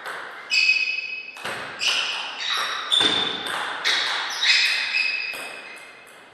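Table tennis rally: the celluloid ball cracking off the bats and table in quick alternation, roughly two hits a second, each hit followed by a brief ringing tone. The hits stop about five and a half seconds in.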